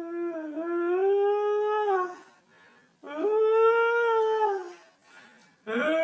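Long drawn-out howls: two of about two seconds each, the pitch rising a little and then falling off at the end, and a third beginning near the end.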